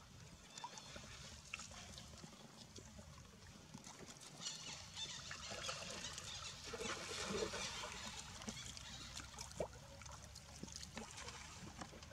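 Faint water lapping and splashing as monkeys swim and paddle in a pool, with small drips and clicks, swelling for a few seconds in the middle.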